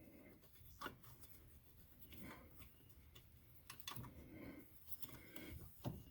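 Near silence with a few light clicks and soft rubbing as a bolt is worked by hand into a lawn tractor's electric PTO clutch, failing to catch.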